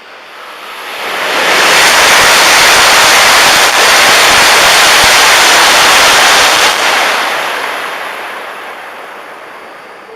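Shinkansen bullet train passing at high speed: a rushing roar of wind and wheel noise that builds over a second or two, holds loud and steady for about five seconds, then fades away.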